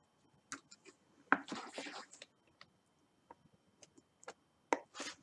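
Faint small clicks and taps of metal tweezers picking diamond-painting drills out of a plastic tray and setting them onto the canvas, with a short scratchy rustle about one and a half seconds in.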